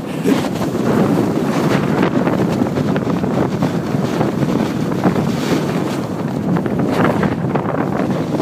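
Wind rushing over a phone's microphone as a rider moves fast downhill on snow: a loud, steady roar with a few brief louder gusts.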